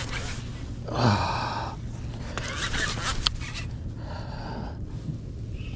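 An angler's gasping breaths and a short grunt about a second in while he cranks a conventional reel against a hooked sturgeon, with a steady low hum underneath.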